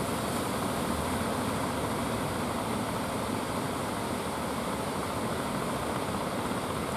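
Ocean surf breaking along the beach: a steady, unbroken rushing wash of waves.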